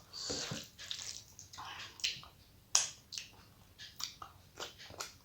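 A person chewing a mouthful of rice and curry, with frequent wet mouth clicks and smacks at an uneven pace.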